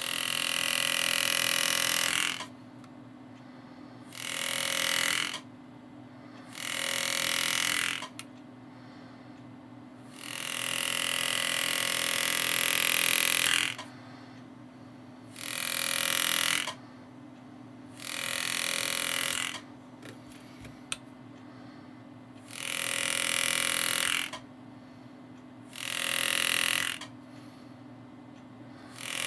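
Pneumatic engraving handpiece buzzing as its graver cuts shading into a steel grip cap, in about nine separate bursts of one to three seconds with short pauses between. A steady low hum runs underneath.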